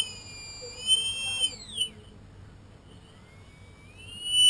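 Brushless drone motor sold as a Tarot 4006 giving a high-pitched whine that glides down in pitch and fades out a little under two seconds in, then rises again near the end to a loud, steady high whine as it spins back up. The uploader puts the high-pitched sound down to bad bearings, probably.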